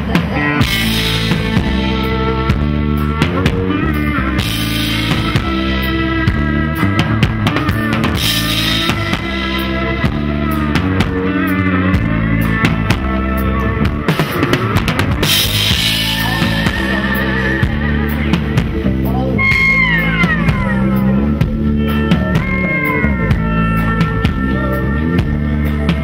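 Live band playing an instrumental passage: a drum kit with cymbals keeps a steady beat under a busy bass line, while a lead instrument plays sliding, gliding notes.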